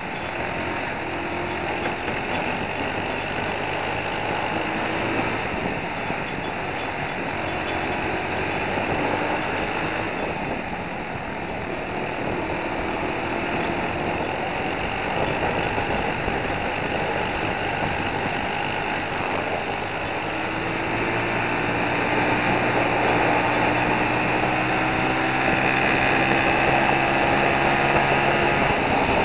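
Onboard sound of a racing kart's four-stroke Briggs & Stratton World Formula engine at race speed, with wind rush on the microphone. The pitch wavers through the corners and climbs steadily over the last third as the kart accelerates down a straight.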